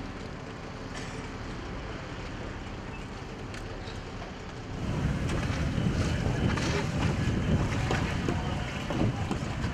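Outboard motor of an inflatable rescue boat heard faintly across open water. About five seconds in it gives way to louder wind buffeting the microphone and water splashing around the inflatable boat, with a few sharp knocks.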